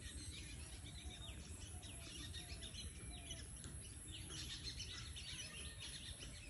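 Several birds chirping, a run of short, quick chirps that often fall in pitch, growing busier about four seconds in, over a low steady rumble.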